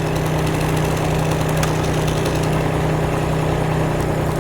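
An engine running steadily at constant speed, giving an even low hum with a regular throb.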